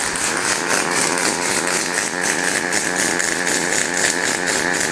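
Industrial welding robot's arc welding a seam: a steady, loud, buzzing crackle with a faint steady high tone running through it.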